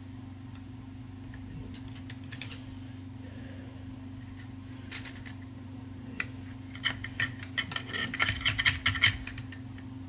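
Metal-on-metal clicks from a screwdriver and loose parts in the stripped steel mechanism of an Olivetti Linea 98 typewriter. A few scattered clicks come first, then a quick run of ringing metallic clinks about seven to nine seconds in, over a steady low hum.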